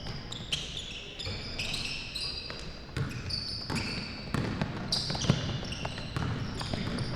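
Basketball game on a gym court: many short, high-pitched sneaker squeaks on the hardwood floor and the thuds of a dribbled basketball, over a low murmur of voices.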